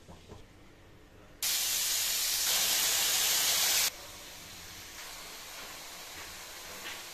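Potatoes, green beans and tomatoes sizzling in hot oil in a steel wok. A loud sizzle starts suddenly about a second and a half in and cuts off just before four seconds, dropping to a quieter steady sizzle.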